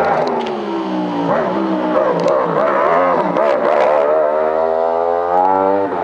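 Open-wheel formula racing car's engine through a hillclimb bend: its pitch falls over the first second or so, wavers up and down for a few seconds, then climbs steadily as the car accelerates away.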